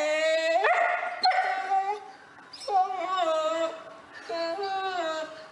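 A dog whining and howling in protest, in three long drawn-out calls with the pitch sliding up and down, coming out like "no, no, no".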